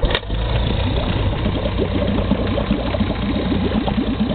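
Mariner 3.3 hp single-cylinder two-stroke outboard catching right at the start, then running steadily just after starting, its propeller churning the water in a test barrel. It is a first start after sitting unused all winter.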